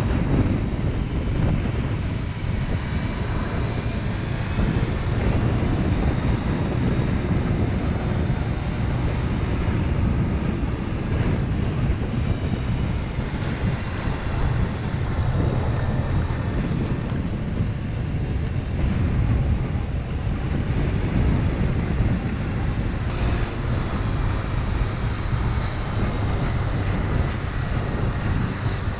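Motor scooter engine running steadily while riding, mixed with a strong low rush of wind over the camera microphone.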